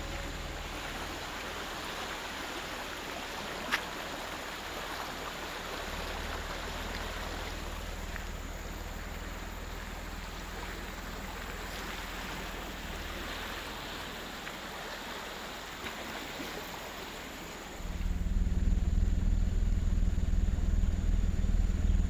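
River water rushing steadily below a bridge, with a single sharp click a few seconds in. About eighteen seconds in, a much louder low rumble comes in and drowns the water.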